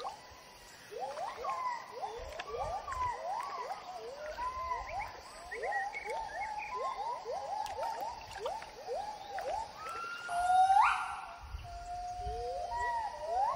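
Gibbons singing: a long run of short, rising hooting notes, then from about ten seconds in louder, longer notes that swoop steeply upward.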